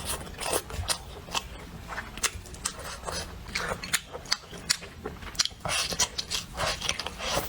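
A person eating close to the microphone: chewing and biting, heard as an irregular run of sharp clicks and crunches with a few longer noisy stretches near the end.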